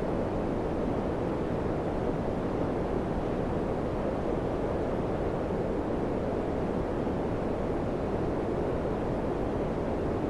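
Daikin FCQ100KAVE4 ceiling-cassette air conditioner running, a steady, even rush of air from its fan.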